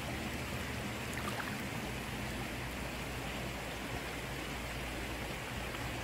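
Shallow rocky mountain stream running steadily around the wader's legs and hands, a continuous rushing of water.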